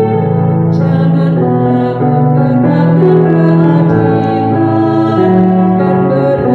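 A woman singing a slow Indonesian hymn into a microphone, accompanied by an electronic keyboard, with long held notes.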